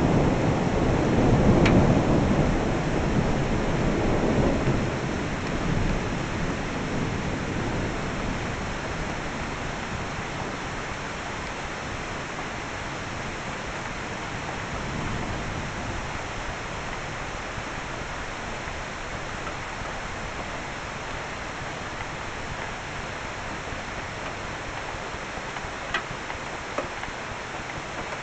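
Thunder rolling over steady rain. The rumble is loudest in the first few seconds and dies away by about eight seconds in, leaving only the rain's even hiss, with two short clicks near the end.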